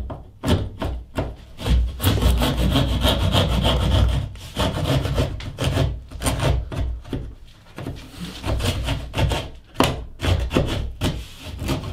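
Hand drywall jab saw sawing through the overhanging edge of a gypsum plasterboard panel, in quick back-and-forth rasping strokes about three a second, with a short lull about eight seconds in.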